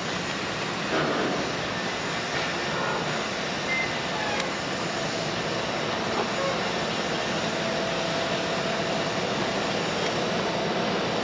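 Steady rushing machinery noise from a moored naval ship, with a few faint knocks.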